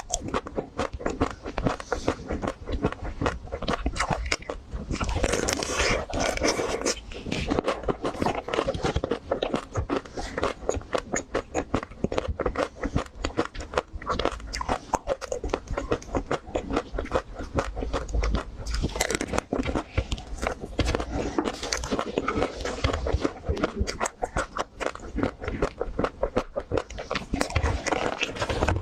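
Close-miked biting and chewing of crunchy chocolate-coated ice cream bars: a rapid, dense crackle of the chocolate shell breaking between the teeth, with louder, fuller crunches about five seconds in and again about twenty seconds in.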